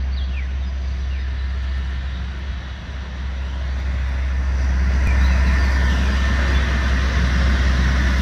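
Sugarcane train, a diesel locomotive hauling loaded cane bins on a narrow-gauge cane tramway, rumbling past steadily, growing louder about halfway through as it comes closer.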